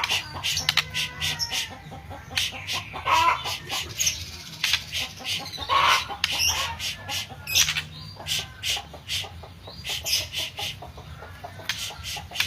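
White-rumped shama (murai batu) singing: a long run of sharp, clicking staccato notes mixed with a few short whistled phrases.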